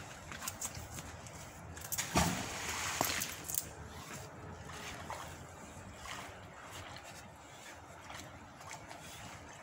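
An object splashes into the river about two seconds in, with a smaller splash or knock a second later, over steady outdoor background noise.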